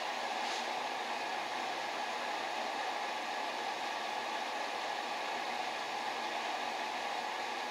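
Acetylene torch flame hissing steadily while a crush washer is heated in it to a dull red to anneal it.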